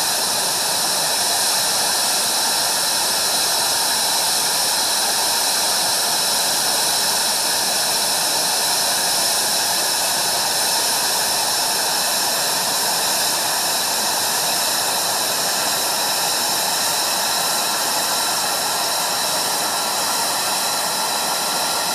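Lockheed Martin F-22 Raptor in flight, its twin Pratt & Whitney F119 turbofan engines giving a steady, dense jet-engine rush with no clear rise or fall.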